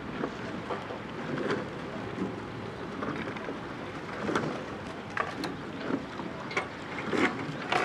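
Wind rushing over the microphone, with scattered light knocks and splashes from a double scull's oars working in the water.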